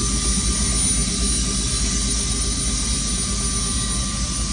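Helicopter turbine engine and rotor running, heard from inside the cabin: a steady loud rush with a thin whine and a rapid low rotor beat underneath.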